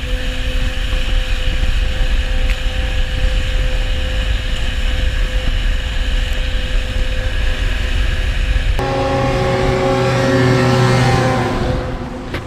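Snowmobile engine running steadily at speed while towing, with wind rumbling on the microphone. About nine seconds in, the sound cuts abruptly to a louder engine drone, whose pitch falls slightly near the end as the machine goes by.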